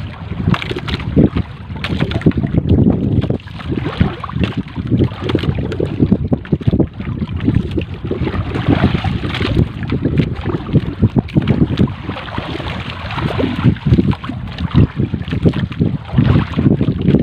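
Wind buffeting the microphone in uneven gusts, over sea water splashing against the hull of a small outrigger boat.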